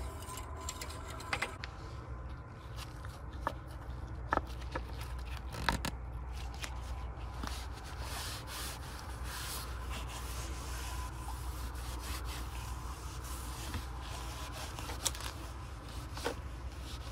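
Cloth rag rubbing and wiping over a Mercedes W140's engine cover and intake manifold, with scattered light clicks and knocks. A steady low hum runs underneath.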